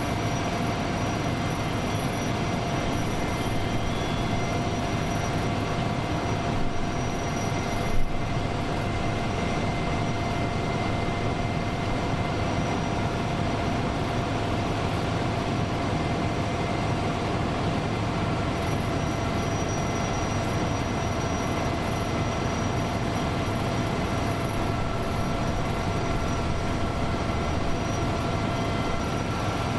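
Steady mechanical running noise with several constant whining tones held throughout, and a brief knock about eight seconds in.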